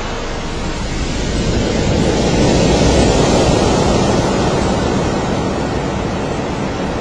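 A long rushing splash of seawater as a breaching great white shark crashes back into the sea, swelling to a peak about three seconds in and then slowly easing off.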